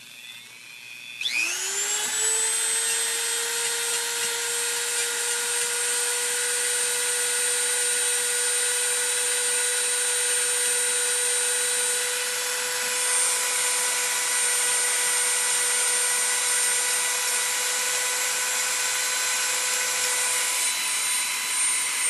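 Handheld rotary tool with a sanding drum, switched on about a second in, spinning up with a rising whine and then running steadily on its high setting while sanding down the bent aluminum corner of an iPad case. The motor starts to wind down at the very end.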